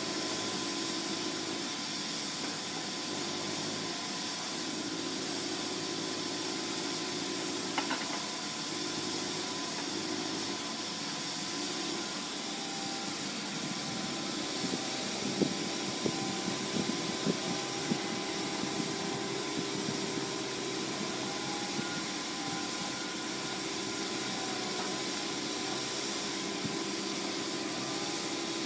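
Walking excavator's engine running steadily with a hiss, and a few sharp knocks in the middle of the stretch.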